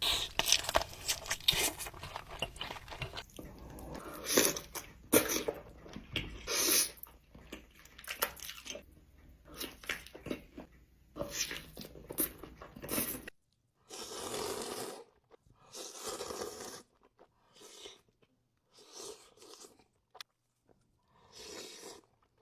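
Close-miked eating sounds: crunchy bites and chewing in uneven clusters of sharp crackles. About 13 seconds in the sound changes abruptly to a series of longer, separate bursts about a second apart.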